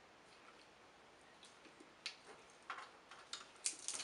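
Snow crab leg shells cracking and snapping as they are broken open by hand to pull the meat out; a handful of short, sharp cracks come in the second half.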